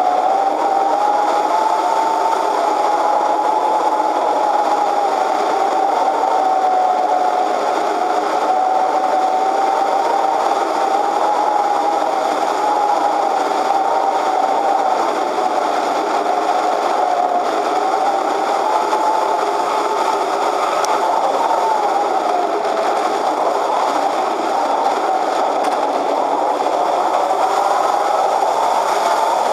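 Easyglider Pro RC glider's electric motor and propeller running in flight, heard from the onboard camera: a steady whine whose pitch drifts slowly up and down, over a constant rush of wind and airframe noise.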